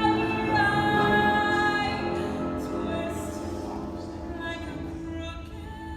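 Background music: a woman singing long held notes over an accompaniment, slowly fading down.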